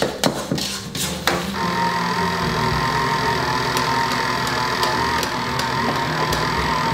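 A few knocks and clicks, then about a second and a half in a stand mixer's motor starts and runs steadily with a hum and a high whine, its flat beater working minced fish into a paste.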